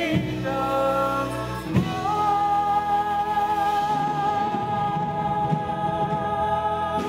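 Gospel-soul vocal group with a choir singing; about two seconds in the voices settle onto one long held chord.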